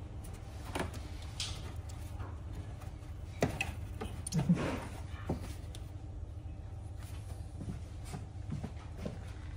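Scattered clicks and knocks of parts and tools being handled during work on a scooter, the loudest cluster about four and a half seconds in, over a steady low hum.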